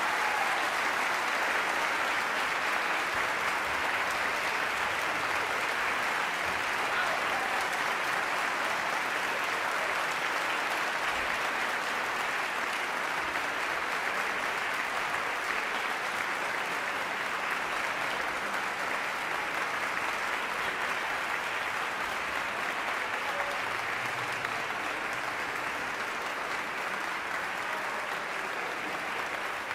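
Audience applauding after an orchestral concert performance; sustained applause that eases a little toward the end.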